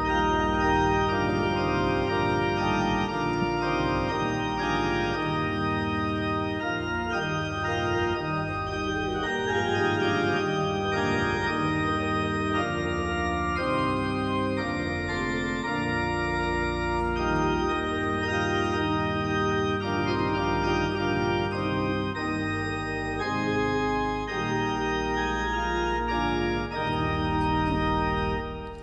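Church organ playing the introduction to a hymn: sustained chords moving under a melody, ending just before the congregation begins to sing.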